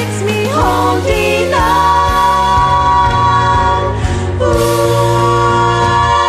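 Music: a woman singing a pop song over a backing track with a steady bass, rising in pitch about half a second in, then holding two long notes.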